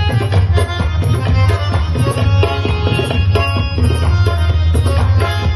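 Loud South Asian-style music with quick tabla-like hand-drum strokes over a heavy, booming bass, played as a sound check of a sound system.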